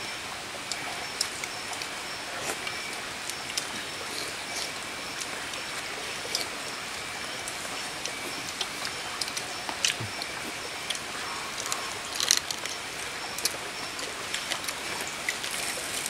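Steady outdoor night hiss with faint high steady tones, and scattered light clicks and clinks of spoons on bowls and pots as a group eats, loudest in a short flurry about twelve seconds in.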